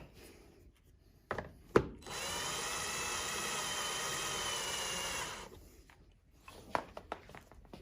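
Power drill driving a chair-leg screw in one steady run of about three and a half seconds, its motor whining evenly. Sharp clicks and knocks come before it, the loudest about two seconds in, and a few lighter clicks follow near the end.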